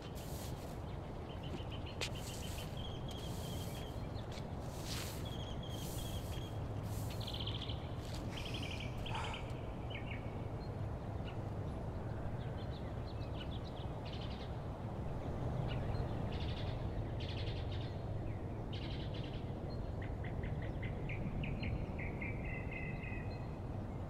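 Small birds chirping in short, rapid trills at intervals over a steady low outdoor rumble. There are a few brief swishing strokes in the first several seconds.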